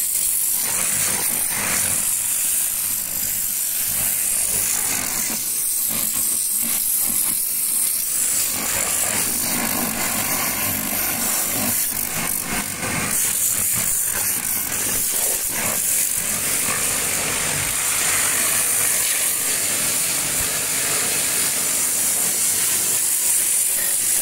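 Pressure washer lance spraying a tractor's rear wheel and tyre: a steady, loud hiss of high-pressure water striking rubber and steel.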